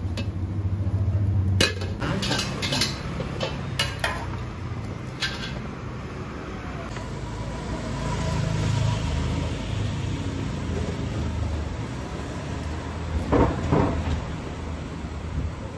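Metal spatula and dishes clinking sharply several times over the first few seconds, over a steady low hum. Near the end comes a short run of dull knocks from a chef's knife striking a wooden chopping block while slicing fish.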